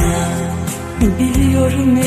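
A slowed-down, reverb-heavy 1980s Turkish pop ballad playing: sustained instruments over a bass line, with a woman's sung note gliding up and holding from about a second in.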